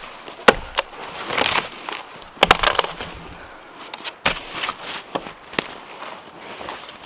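Hatchet chopping into a small tree's wood: about five or six sharp, irregularly spaced strikes, two of them close together about two and a half seconds in, with rustling from the shaken branches between blows.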